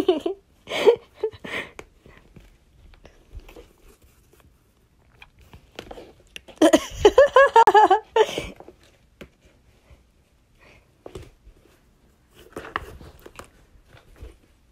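Fabric storage drawer rustling and scraping as it is jostled about with a cat lying in it, in short scattered crackles. About six and a half seconds in comes a louder, wavering vocal sound lasting a second or two.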